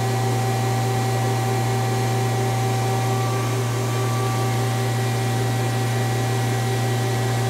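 Mazak CNC lathe standing powered up and idle: a steady machine hum with a few thin steady tones above it.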